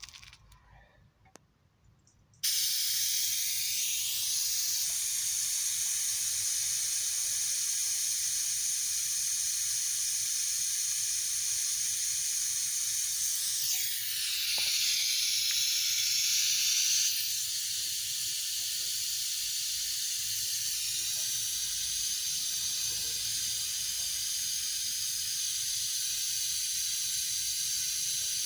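Air-driven brake bleeding tool hissing steadily as it draws brake fluid at the wheel. The hiss starts abruptly after a few faint clicks and grows brighter for a few seconds midway.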